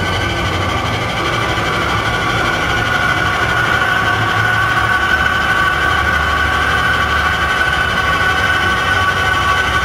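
Steady droning soundtrack of a stage dance piece: a low rumble under several sustained high tones, no beat, swelling slightly after about two seconds.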